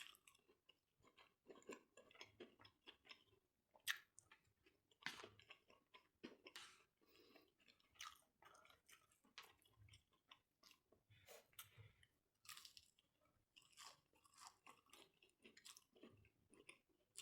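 Close-up chewing and biting of food, with irregular wet clicks and crunches; a sharp click about four seconds in is the loudest.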